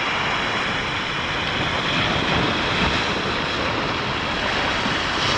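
Steady rush of ocean surf washing over the reef shoreline, with wind buffeting the microphone.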